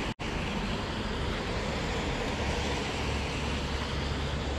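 Steady wind rumbling on the microphone, broken by a split-second gap in the sound just after the start.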